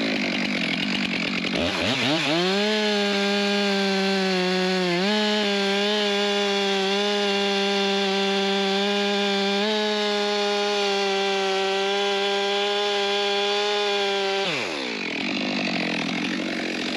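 Chainsaw cutting down into a log. The engine climbs in pitch about two seconds in and holds a steady high whine through the cut, then drops off near the end as the throttle is let go.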